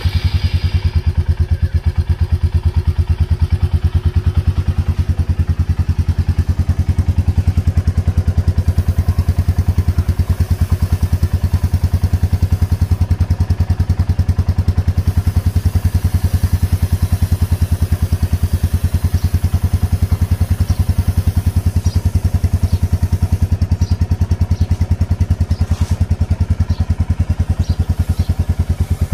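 Royal Enfield Meteor 350's single-cylinder engine, just started, running steadily at idle with an even, rapid pulse.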